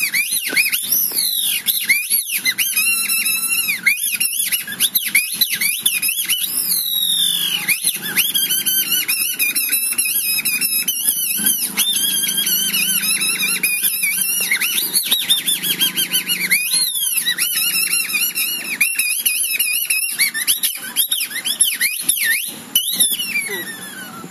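High-pitched squeaking chatter from a kathputli puppeteer's mouth reed (boli), giving the string puppets their voices, the pitch sliding up and down in quick squeals throughout.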